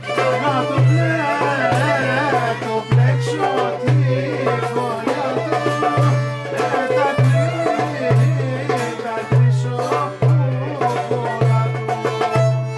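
Live Greek folk music: a violin playing an ornamented melody over lute, with percussion keeping a steady beat.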